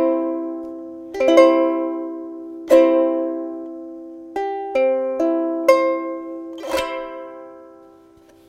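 Anuenue Oahu solid koa soprano ukulele strummed in chords, each left to ring and die away. About eight strums come a second or so apart, with a few quicker ones in the middle, and the last chord fades out near the end.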